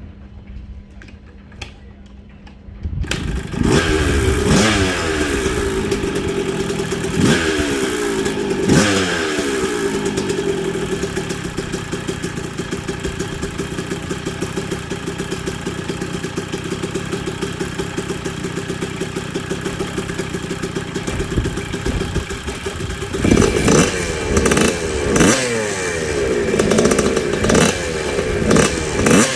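Freshly rebuilt vintage 125cc two-stroke motocross engine kick-started for its first run after the rebuild. After a few faint clicks it catches about three seconds in and is blipped three times. It then runs steadily, and near the end it is revved in a string of quick blips.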